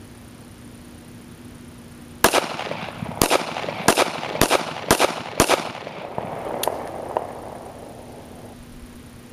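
Kel-Tec P3AT .380 ACP pocket pistol firing six shots in quick succession, starting about two seconds in, the first two about a second apart and the rest about half a second apart, each ringing out briefly after the crack.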